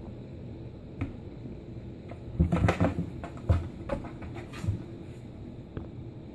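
Cardboard box rustling, scraping and knocking as a kitten scrabbles and claws at its flaps, in a cluster of quick scratchy knocks and soft thuds about two and a half to five seconds in, with a lone click either side.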